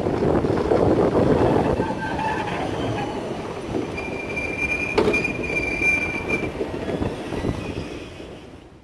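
Vienna ULF low-floor tram rolling past on its rails and away, a rumbling pass-by that gradually fades. A high steady wheel squeal rises out of it for a couple of seconds in the middle, with a single sharp click about five seconds in.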